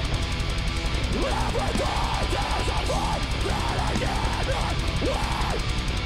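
Deathcore band playing live: heavy distorted guitars and dense drums, with a high melodic line that swoops up and down in pitch over and over, and no vocals.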